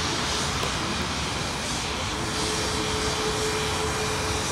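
Jet engines of a taxiing Icelandair twin-engine narrow-body airliner, running at low thrust with a steady rushing noise. A steady whine joins in a little after halfway.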